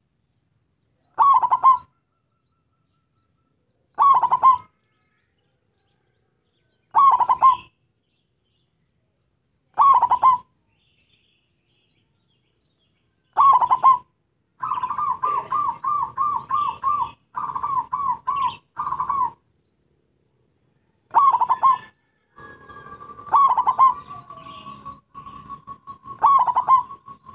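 Zebra dove (perkutut) cooing: short phrases about three seconds apart, then a run of quick repeated coo notes in the middle, then more phrases near the end. A local perkutut in full song (gacor), the kind of call used to lure other perkutut.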